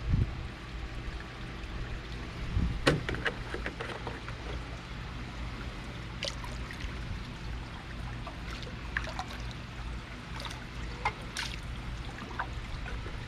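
Liquid trickling and splashing into pool water, over a low steady hum, with scattered light clicks.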